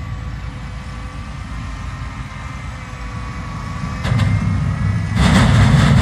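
A self-propelled sugar beet harvester and the tractor and trailer running beside it, working in the field: a steady low engine rumble that grows louder about four seconds in, with a louder rush of noise joining about a second later.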